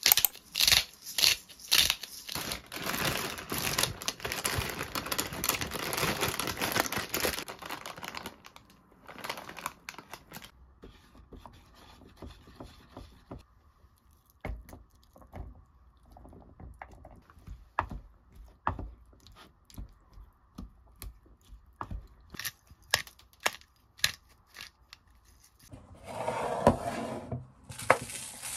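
Water at a rolling boil, bubbling in a pan for about eight seconds. Then scattered light clicks and knocks of plastic containers being handled. Near the end comes a rush of dry rice poured from a plastic bottle into a plastic tub.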